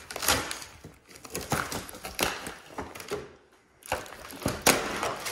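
Paper drilling template and blue painter's tape being peeled off a car's deck lid and handled: irregular crinkling and rustling with several sharp crackles.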